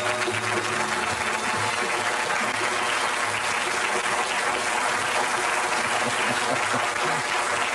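Studio audience applauding steadily, a dense, even clapping that holds level throughout.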